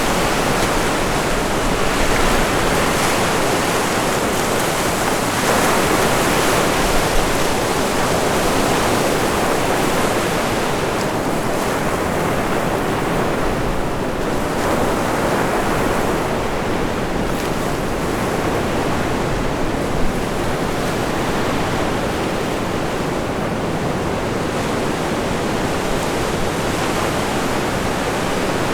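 Ocean surf breaking and washing up a beach, a continuous rush that swells and eases, with strong wind buffeting the microphone in low rumbles.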